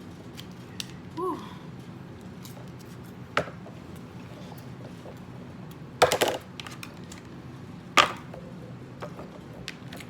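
Eating sounds from a chicken nugget close to the microphone: a few sharp, short noises, the loudest a quick cluster about six seconds in and a single one about eight seconds in, over a steady low hum.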